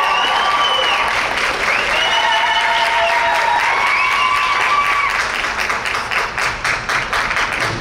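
Audience applauding at a rink, the applause thinning to scattered separate claps near the end.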